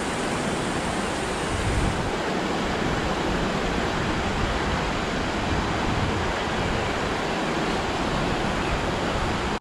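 Steady rush of flowing river water: an even, unbroken noise with an uneven low rumble beneath it.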